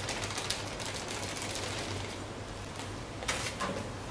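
Small packet crinkling and rustling as coconut is shaken out of it, then a couple of light clicks a little past three seconds as the packet is set down.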